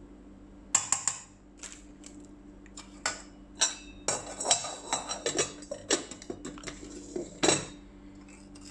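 Metal spoon clinking and scraping against a stainless steel saucepan while stirring sugar into milk: irregular clinks, the loudest one near the end.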